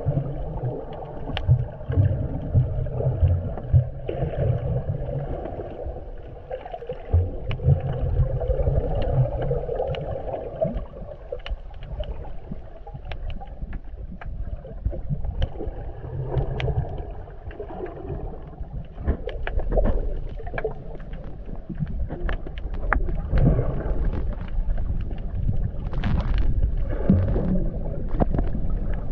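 Muffled water sound recorded by a camera underwater while snorkelling: sloshing and gurgling that swells and fades unevenly, with scattered sharp clicks.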